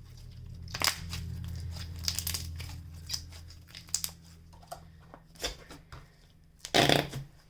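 Clear glitter slime being squished and worked in the hands, making a run of small clicking, crackling squelches, then one short, louder squelch near the end.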